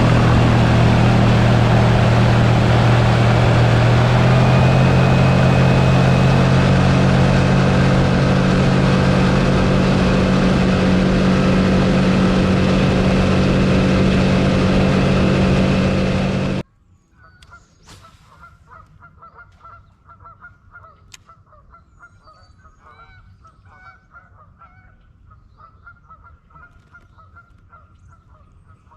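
Boat outboard motor running at speed with a rush of wind and water, cutting off abruptly about two-thirds of the way through. Afterwards, geese honking faintly and repeatedly.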